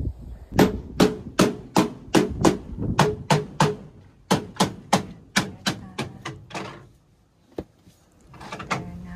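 A rapid run of sharp, evenly spaced knocks, about three a second, with a slight ring to each. It pauses briefly midway and stops about seven seconds in, followed by one lone click.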